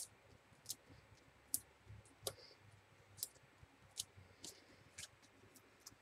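Faint, irregular small clicks and ticks of fingernails and paper as foam adhesive dimensionals are picked off their backing sheet and pressed onto a cardstock panel, about one or two a second.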